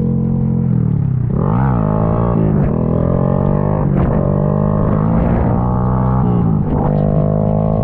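Honda Grom's single-cylinder engine running at steady revs under throttle, dipping briefly and revving back up about a second and a half in.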